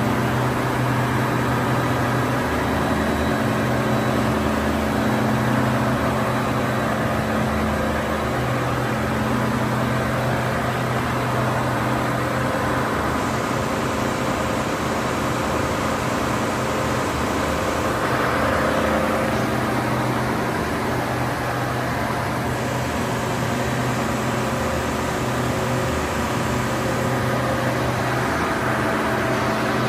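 1850 mm stretch film machine running at high speed: a steady mechanical hum and whir of motors and rollers, with low tones that come and go every few seconds.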